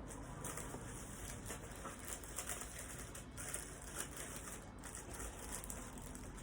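Soft, irregular rustling and light handling noises of packaging material (plastic and foam) as pieces of a boxed statue are unpacked.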